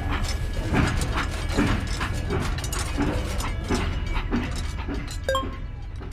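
Battery-powered toy steam train running on plastic track: a steady motor hum with regular clicks, roughly three every two seconds, growing fainter near the end.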